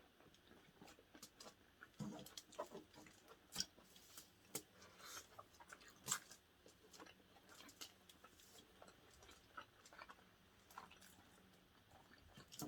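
Faint chewing and biting: people eating, with scattered small wet smacks and clicks, two of them louder about a third and halfway through.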